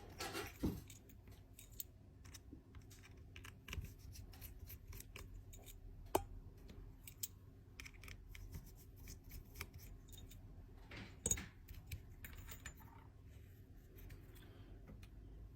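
Faint, scattered clicks and taps of small hand tools working inside an opened iPhone 13 Pro Max while the battery connector is being taken off, with a sharper click about six seconds in and another cluster about eleven seconds in, over a low steady hum.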